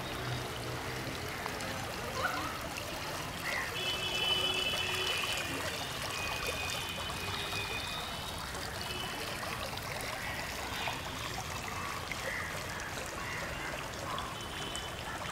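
Small pond fountain trickling and splashing steadily into the water.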